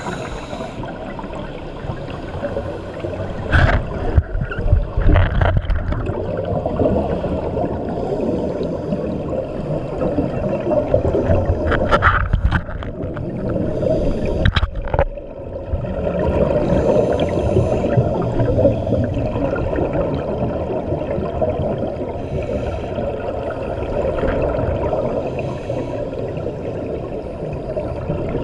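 Scuba diver's exhaled bubbles gurgling out of the regulator, heard underwater through a camera housing over a steady muffled rushing. Two louder bursts of bubbles: one a few seconds in and one about halfway through.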